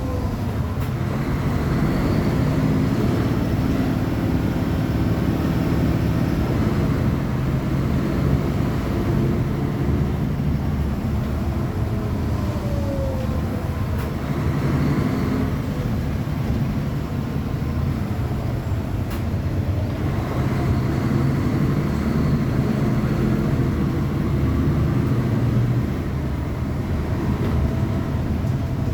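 Diesel engine of a Mercedes-Benz O500UA articulated bus running, its low note building and easing several times, with a faint high whine over it at times. The level drops a little, suddenly, near the end.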